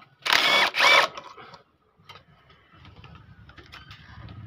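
Cordless impact wrench loosening engine side-cover bolts: two short bursts of high motor whine, about half a second in and just after one second, followed by quieter clicking and rattling of the socket and bolt.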